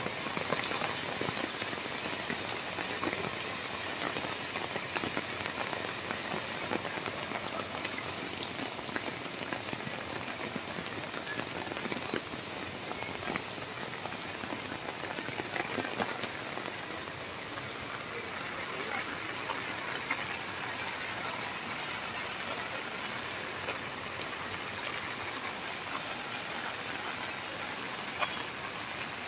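Steady rain falling, with many small scattered drop hits.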